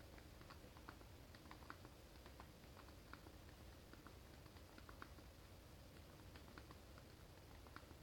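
Faint, irregular key clicks, a few a second, from thumb typing on the GPD MicroPC handheld's small built-in keyboard.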